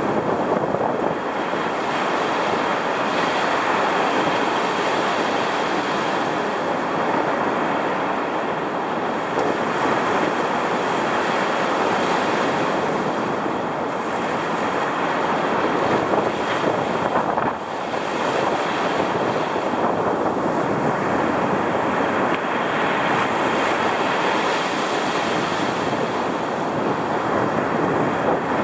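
Rough ocean surf roaring as waves break and wash up the beach, heard up close from the water's edge during a strong cold front, with wind buffeting the microphone. The roar rises and eases gently, with a brief dip shortly after the middle.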